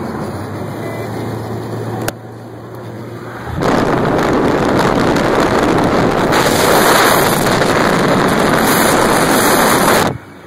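Moving car at freeway speed: road noise with a steady low engine hum. About three and a half seconds in, a loud rush of wind buffeting the microphone takes over, as from an open car window, and it cuts off abruptly near the end.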